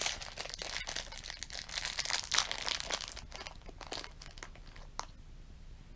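Thin clear plastic bag of mints crinkling as it is handled and opened, a dense crackle for about three and a half seconds, then a few scattered crinkles.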